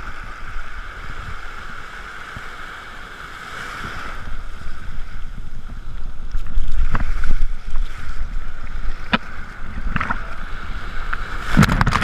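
Shallow surf washing and sloshing around a camera held at the waterline, with a steady hiss and a low rumble of water and wind on the microphone and a few sharp splashes. Near the end, a wave breaks right over the camera in a loud splash.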